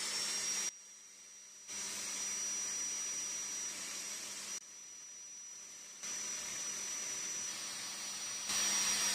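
A small high-speed electric power tool running steadily with a high whine and hiss, its loudness jumping up and down abruptly several times.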